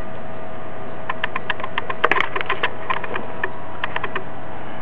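Homemade Newman motor running a 19-inch fan: a steady running hum and tone with irregular sharp clicks, several a second, from its switching, and a louder cluster of clicks about two seconds in.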